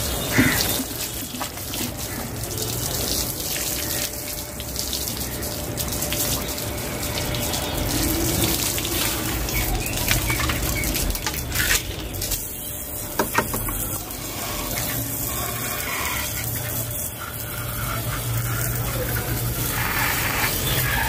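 Water running from a garden hose, spraying and splashing over aquarium tubes and fittings being rinsed and onto wet concrete, steady throughout. A few sharp knocks come about halfway through.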